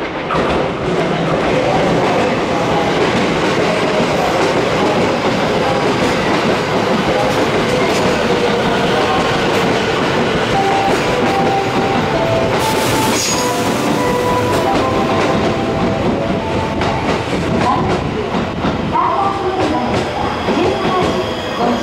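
JR West Special Rapid Service electric multiple-unit train pulling into the platform and slowing: a steady rumble and clatter of wheels over the rails, with whining tones from the running gear and a brief hiss about halfway through.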